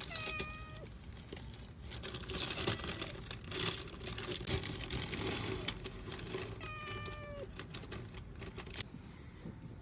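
A cat meowing twice: two long drawn-out meows, each dropping in pitch at the end, one at the start and one about seven seconds in. Between them comes rustling and clicking.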